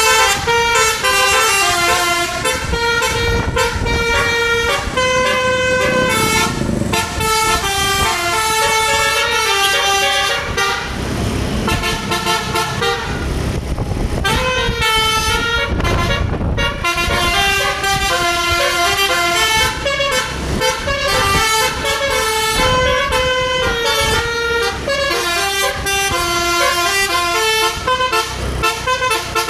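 Bus telolet horn, a multi-tone musical air horn, playing quick tunes of stepped notes one after another. For a few seconds around the middle it stops, leaving the bus's running and road noise, then it starts up again.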